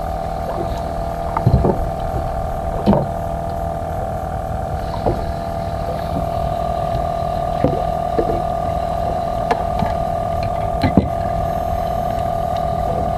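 A boat engine running at a steady pitch, making a constant drone, with a few short knocks and clicks here and there.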